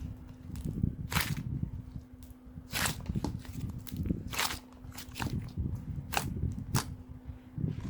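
Clay slime being squeezed and pressed by hand, giving sharp pops and clicks every second or so over a low rumble of handling.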